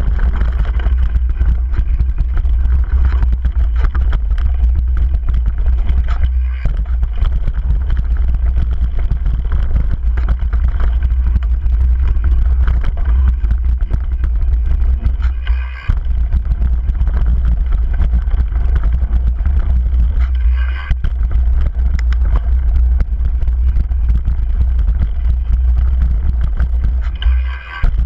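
Wind rumble and trail noise on an action camera's microphone during a fast downhill mountain-bike run on a dirt track. The noise is loud and steady, dropping briefly about four times.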